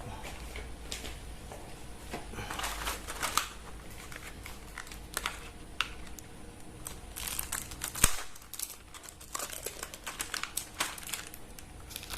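Parcel packaging crinkling and small items clicking as they are handled and unpacked, with one sharp knock about eight seconds in.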